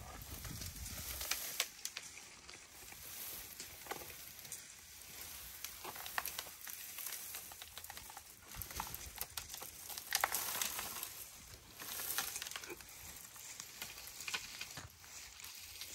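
Dry branches of an umbrella thorn acacia rustling and crackling as an African elephant browses in it and pulls the tree up with her trunk. The sound is a continual run of small snaps and crackles.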